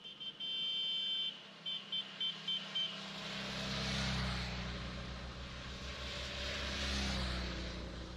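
An electronic device beeps, one long high beep followed by five short quick beeps. Then rushing wind noise with a low rumble fills the helmet- or bike-mounted camera's microphone as the bicycle rides on, swelling twice.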